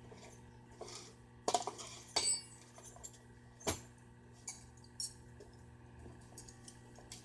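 Scattered metallic clinks and knocks, the loudest three about a second apart near the start, over a faint steady hum.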